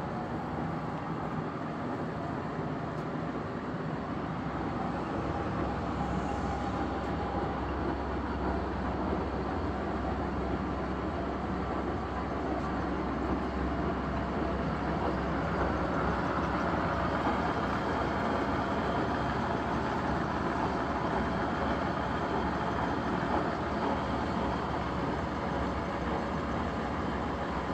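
Steady mechanical hum and rumble of heavy machinery in a machine shop, with a few steady low tones and a slight rise in level partway through.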